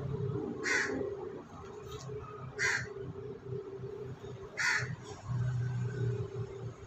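A crow cawing three times, about two seconds apart, each caw short and harsh.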